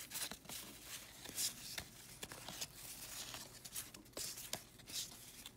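1986 Topps baseball cards being flipped and shuffled by hand: a quick, uneven run of soft cardboard clicks and rustles as card slides over card.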